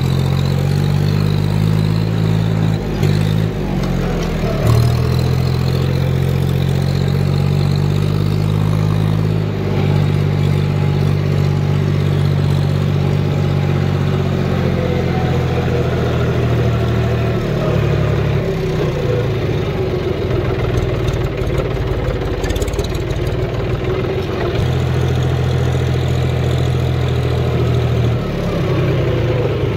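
John Deere tractor's diesel engine running as the tractor drives across a field. Its pitch steps down and back up several times as the engine speed changes.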